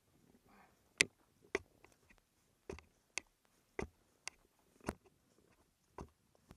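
A series of about eight sharp clicks or snaps, irregularly spaced roughly half a second to a second apart.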